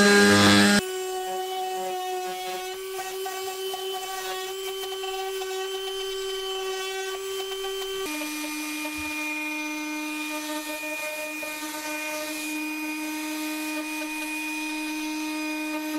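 Milwaukee M12 Fuel orbital detail sander running steadily as it sands painted plywood up against an edge, heard sped up along with the footage. Its steady whine drops suddenly in pitch about eight seconds in.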